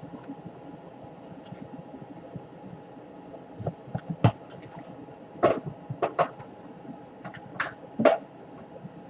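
Handling of tools and small laptop parts on a workbench: a run of sharp clicks and taps, about nine of them, in the second half, over a faint steady hum.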